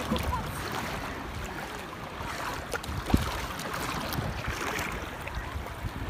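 Small sea waves washing and lapping, with wind gusting on the microphone and a single sharp knock about three seconds in.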